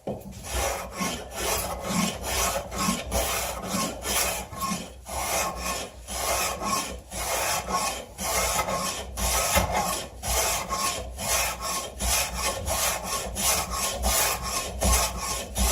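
Rhythmic back-and-forth rubbing or scraping on wood, about two strokes a second.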